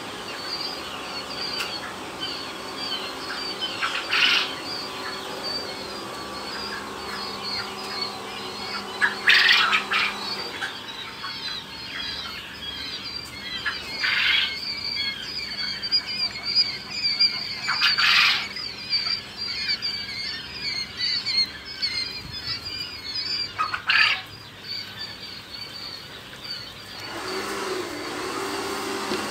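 A brood of quail chicks peeping: a dense, continuous chorus of high cheeps with louder flurries every few seconds. Near the end a steady machine hum comes in.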